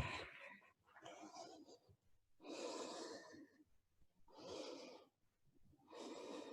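Faint, audible breathing by a woman in a yoga forward fold: about five airy breaths in and out, roughly one every second and a half, with short quiet gaps between them.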